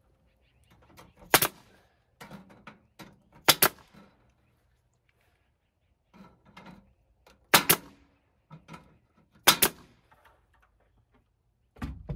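Pneumatic nail gun firing nails into the soffit overhead: four sharp shots a few seconds apart, the later ones each a quick double crack, with softer clicks and knocks of handling between and a dull thump near the end.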